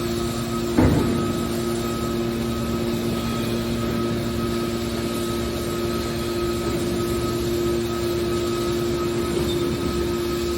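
Hydraulic scrap-metal baler running with a steady machine hum, and a single clank about a second in.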